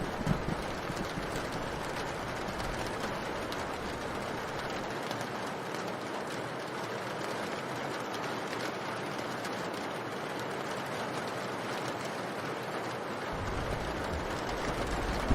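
Steady rain falling, an even hiss; a low rumble comes back in near the end.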